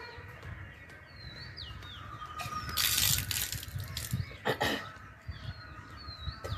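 Small birds chirping in short quick notes, with a brief burst of rushing, splash-like noise about three seconds in and a shorter one a second and a half later.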